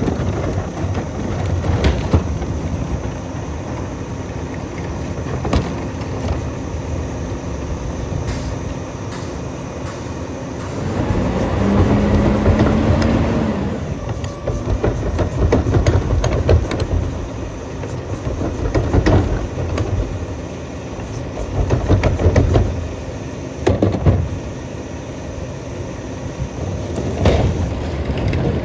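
Western Star rear-loader garbage truck's diesel engine running under the Pak Mor body's hydraulics, revving up in repeated swells as a cart is tipped into the hopper and the packer blade cycles. A steady hydraulic whine is held for a couple of seconds near the middle, and carts and metal parts clunk a few times.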